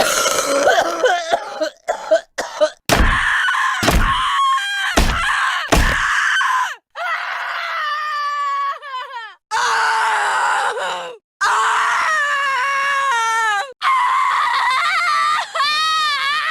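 Stock sound effects of a woman screaming and crying out in pain, one clip after another with abrupt cuts between them. Between about 3 and 6 seconds come four short, heavy hits about a second apart; the second half holds long drawn-out screams whose pitch bends up and down.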